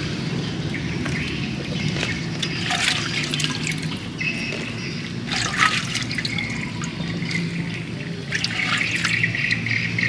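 Fresh chillies rustling and pattering as they are handled in a handful and dropped into an earthenware jar, in irregular bursts of light clatter.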